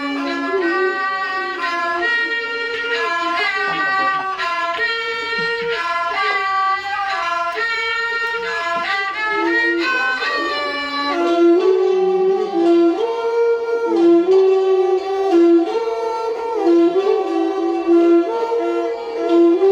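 Thai classical music: an overture (homrong) with its melody carried by a bowed string instrument, moving note to note without a break and growing louder about halfway through.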